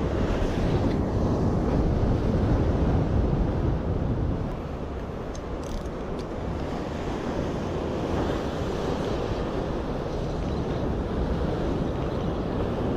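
Sea surf breaking against concrete breakwater blocks, with wind buffeting the microphone; a little louder for the first few seconds, then steady.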